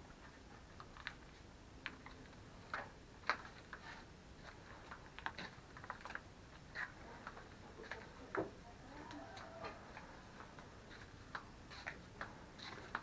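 Faint, irregular clicks and light taps at uneven intervals, over a quiet background hiss.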